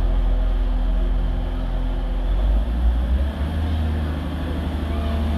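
Diesel engines of a Class 185 diesel multiple unit running as the train moves slowly along the platform, a steady low drone whose note shifts about two and a half seconds in.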